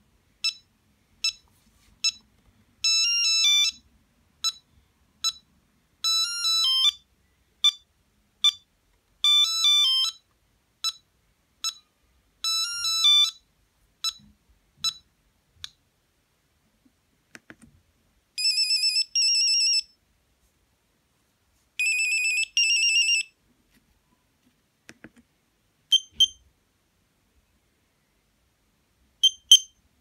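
Nokia 8210 monophonic ringtones previewed through the phone's small speaker, one tone after another. First comes a fast pattern of short electronic beeps broken by quick trilled runs for about fifteen seconds. After a pause come two warbling two-note bursts, and near the end a few sparse beeps.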